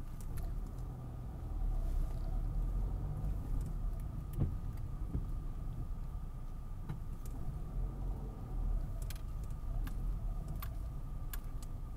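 Car driving slowly in traffic, heard from inside the cabin: a steady low engine and road rumble with a few light clicks and rattles now and then.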